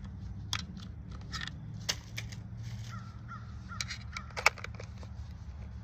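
A series of short, harsh bird calls over a steady low rumble; the loudest call comes near the end.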